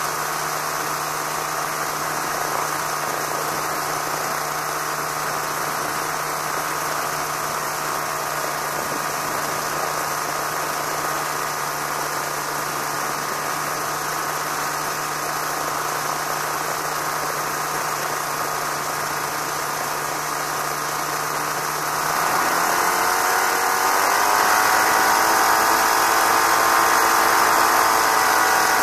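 Challenger II ultralight aircraft's engine and propeller idling steadily, then revving up near the end and holding at a higher, louder pitch.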